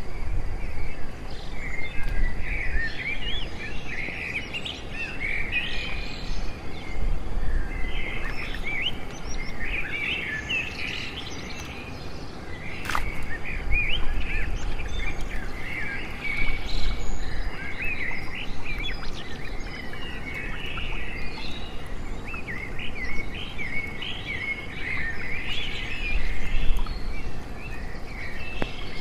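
Many small birds chirping and twittering without pause, with a low rumble underneath and one sharp click about halfway through.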